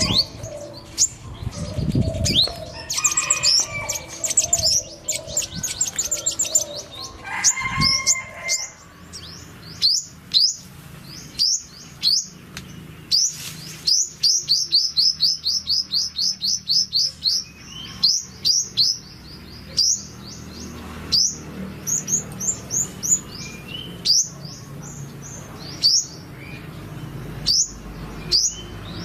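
Purple sunbird singing: high, thin, quick chirps and, about midway, a fast trill of repeated notes lasting a few seconds. In the first several seconds there are also lower-pitched chirping calls and two dull low thumps.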